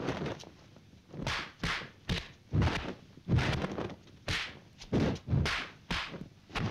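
Kung fu fight sound effects: a rapid, irregular run of about a dozen dubbed punch and block thuds with whip-like swishes of arms and sleeves, starting after a quiet first second.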